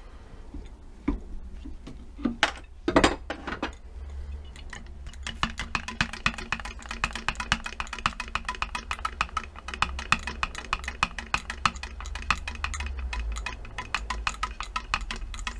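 Compressed air forced into a Triumph Vitesse Mk2 brake caliper to blow out its seized pistons, escaping past a piston through a fierce leak in a fast, fluttering chatter of clicks. A few louder sudden sounds come about two to three seconds in.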